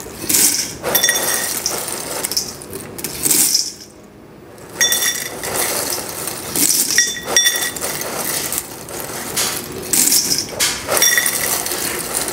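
Dry Chex cereal pouring from a bag into a stainless steel measuring cup and tipped into a stainless stock pot: a dry rattle of pieces on metal in repeated bursts, several with a light metallic ring.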